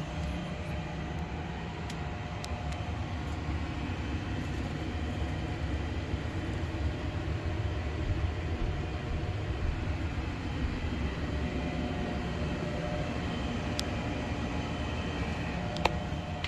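Furnace running with a steady low rumbling hum, likely its blower, with a few faint clicks.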